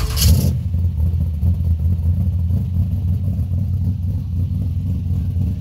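A car engine running with a deep, low rumble that rises and falls slightly, after a short burst of noise in the first half second.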